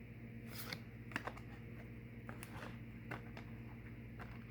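A few faint, scattered light clicks and taps, irregularly spaced, over a low steady hum.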